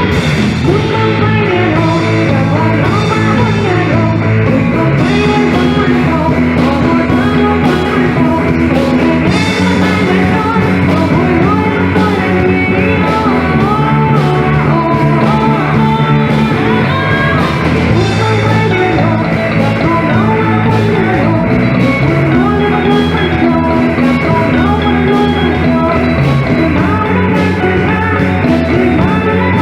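A band playing rock-style music with a singer, loud and continuous.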